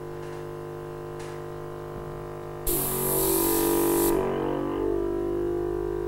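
Background music with long held notes. About two and a half seconds in, the airbrush gun of a portable oxygen infusion system gives a hiss of air lasting about a second and a half, spraying the oxygen activator from its nozzle.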